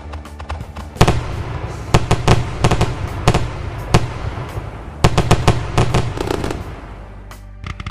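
Fireworks sound effect: a rapid string of sharp bangs and crackling pops, the loudest bang about a second in, over a low steady hum. The bangs thin out and quieten near the end.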